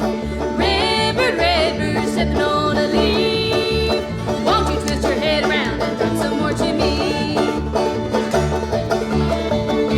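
Bluegrass band playing live, banjo to the fore over a steady, pulsing bass beat.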